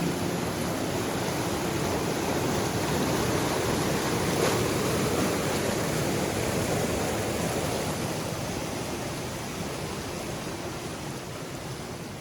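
Steady rush of a river's flowing water that slowly fades over the second half.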